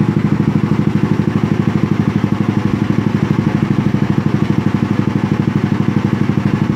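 Scooter engine idling steadily on a chassis dyno, a rapid, even putter that holds the same speed throughout with no revving.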